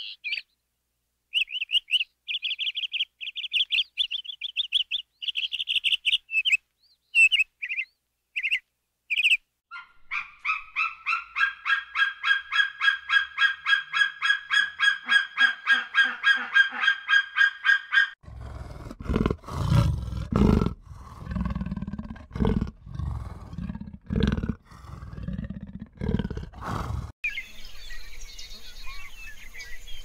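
A run of different animal calls. First come short, high bird chirps, then a fast, even string of pulsed calls, then a series of loud, low calls a second or so apart. It ends in outdoor ambience with faint high calls.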